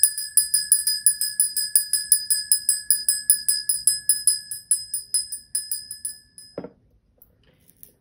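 A small bell rung rapidly, about six strikes a second, its ringing fading and stopping about six seconds in, followed by a single knock.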